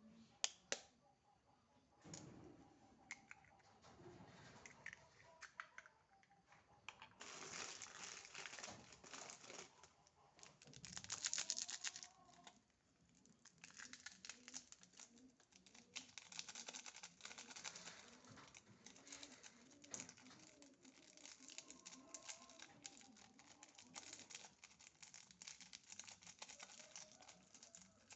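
Faint kitchen handling sounds, crinkling and light tapping, with a dove cooing in the background.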